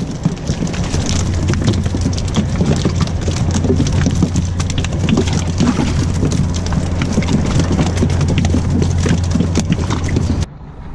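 Dense, rain-like patter of many live mullet flapping and slapping, over a steady low rumble. It cuts off abruptly near the end.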